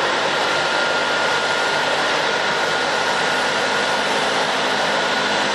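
Jet airliner engines running: a loud, steady rush of noise with a thin high whine over it.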